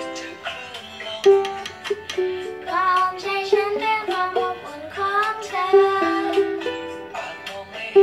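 A child strumming chords on a small ukulele in a steady rhythm and singing along, her voice holding longer notes a few seconds in.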